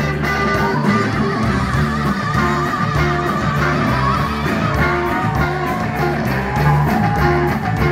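Live rock band playing loud, electric guitar over a steady drum beat.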